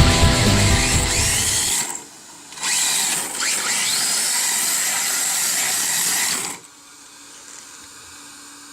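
Background music runs through the first two seconds and fades. Then a small radio-controlled toy drift car's electric motor whirs for about four seconds, its pitch sliding up and down, and cuts off suddenly, leaving a faint hum.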